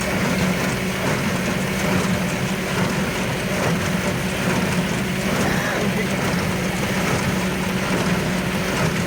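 Tractor engine running at a steady speed, driving the New Holland 66 baler with its mechanism working, as the repaired pick-up auger drive is tried out.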